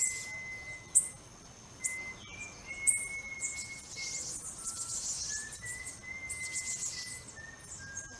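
Quick high bird-like chirps and trills over a slow run of held, whistle-like notes that step up and down in pitch, with a few sharp clicks.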